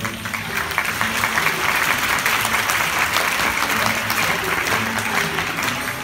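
Theatre audience applauding, a dense patter of many hands that swells about a second in and eases near the end, with the dance music faintly underneath.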